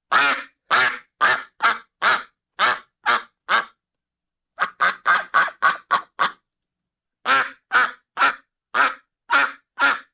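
Duck quacking: a series of short, harsh quacks in three runs, the middle run quicker, with clean silence between the calls.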